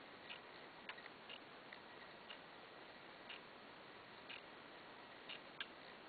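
Hermle mantel clock ticking, faint and about once a second, with a few fainter clicks in between.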